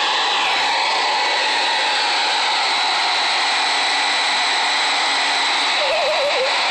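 Handheld hairdryer blowing steadily, a loud even rush of air with a faint high whine from its motor. Near the end a short wavering voice-like sound rises over it.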